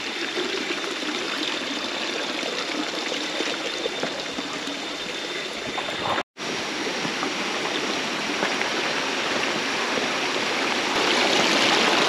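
Stream water flowing with a steady rush. The sound drops out for an instant about six seconds in and then carries on.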